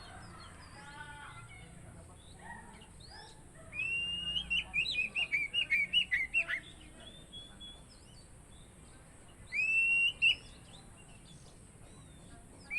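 Oriental magpie-robin (kacer) singing: a rapid run of loud, sharp whistled notes from about four to seven seconds in, then a short phrase near ten seconds.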